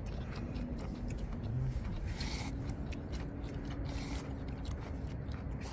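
Noodle eating: slurping and chewing of ramen noodles in spicy soup, with short clicks scattered through and one brief slurp about two seconds in. A faint steady hum runs underneath.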